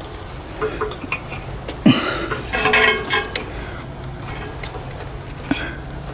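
Light, irregular metal clinks and scrapes as parts are handled by hand inside the open crankcase of a small Predator engine, around the crankshaft and cam gear.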